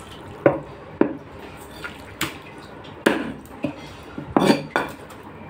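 Scattered sharp clinks and taps, about six in all, among dripping, splashing water.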